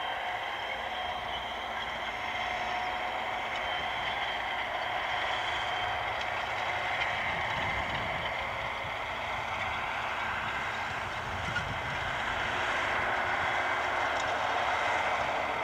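AGCO Challenger MT775E rubber-tracked tractor running under load while pulling a Horsch Joker high-speed disc harrow through the soil: a steady engine and running-gear noise with a few held whining tones, growing a little louder in the last few seconds.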